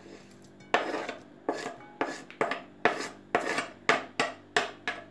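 Metal spoon scraping chopped tomato and onion off a cutting board into a pan: a run of short scrapes and taps, about two to three a second, starting just under a second in.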